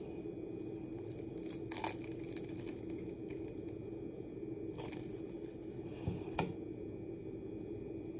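A roll of plastic wrap being handled, giving a few brief crinkles and rustles, two of them close together about six seconds in, over a steady low hum.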